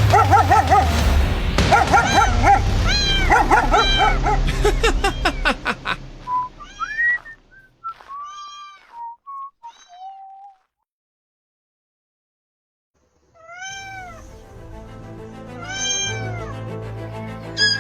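Kitten meowing over background music: many meows close together at first, then fewer, a silence of about three seconds past the middle, then more meows as the music returns.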